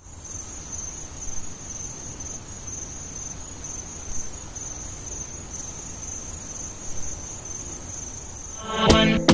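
A high, steady, finely pulsing insect trill over a low rumble of background noise. Near the end a pop song with a heavy beat cuts in.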